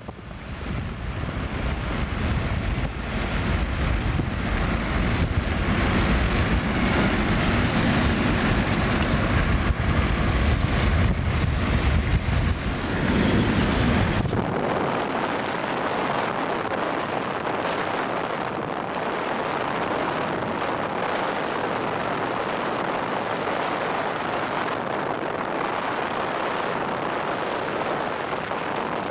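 Steady road and wind noise of a car driving on a motorway, heard from inside the car. A heavy, low wind rumble on the microphone fills about the first half and cuts off abruptly midway.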